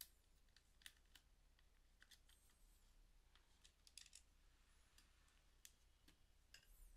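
Near silence with scattered faint small clicks of a screwdriver working a screw in a hair dryer's plastic housing.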